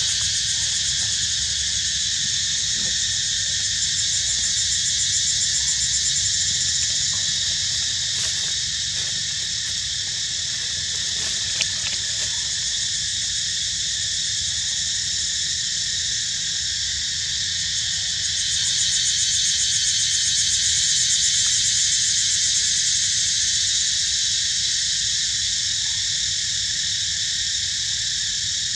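Dense, steady chorus of forest insects, high-pitched and continuous, swelling a little about two-thirds of the way through, over a low steady rumble.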